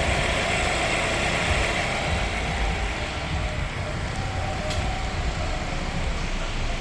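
Steady low rumble and hiss of motor-vehicle noise.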